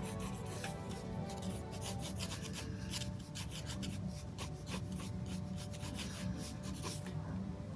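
Ink pen scratching across sketchbook paper in many quick, short strokes while inking a drawing.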